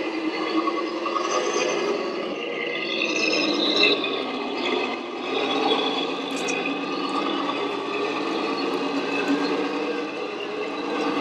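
Radio-controlled scale model trucks driving: a steady mechanical running noise of motors and gearboxes with whining tones, rising and falling in pitch a couple of seconds in.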